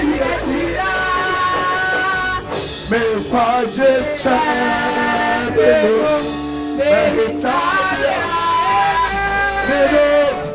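Music: a voice singing a worship song over instruments.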